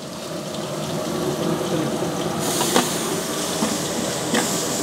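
Garlic paste sizzling in hot oil among fried onions, growing louder as it is spread and stirred in, the hiss turning brighter about halfway through. A metal spatula clicks against the pot a couple of times.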